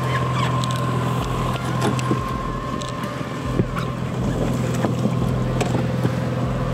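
Mercury outboard motor running steadily at trolling speed, a low even hum with a thin steady whine above it, and scattered light clicks and knocks.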